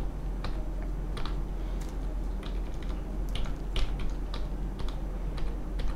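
Computer keyboard typing: irregular keystroke clicks, a few per second, sometimes in quick runs, as an SQL command is edited at a prompt.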